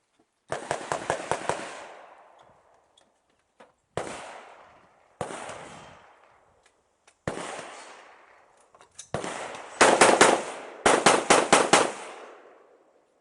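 Rifle gunfire. A quick string of several shots comes about a second in, then three single, spaced shots, then two fast strings of shots near the end. Each report rings out and fades over about a second.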